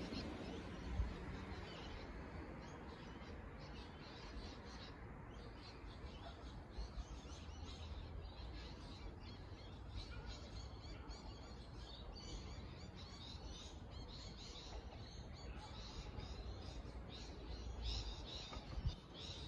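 Birds chirping and calling in the trees, many short scattered calls over a faint steady low rumble, with a couple of brief low bumps.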